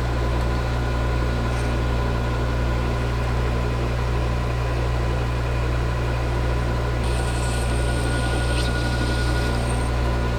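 Metal lathe running steadily with a low hum during a boring cut. About seven seconds in, a faint high-pitched whine joins for about three seconds.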